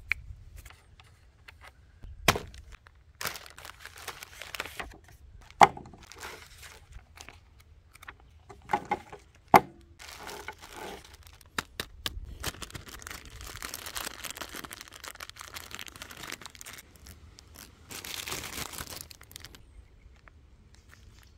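Clear plastic bag crinkling and rustling as it is opened and handled, in longer stretches in the second half, with several sharp clicks and knocks of small air-rifle parts being handled.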